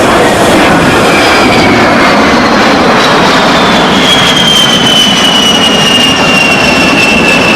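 Military jet flying past, loud engine noise with a high whine that slowly falls in pitch.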